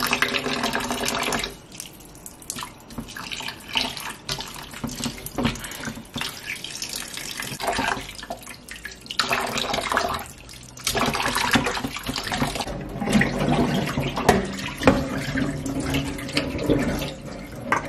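Kitchen tap running into a metal pot of raw chicken pieces, the water splashing as hands rub and turn the pieces to rinse off the vinegar. The splashing rises and falls as the hands work.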